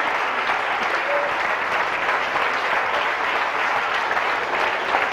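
Audience applauding: many people clapping steadily without a break.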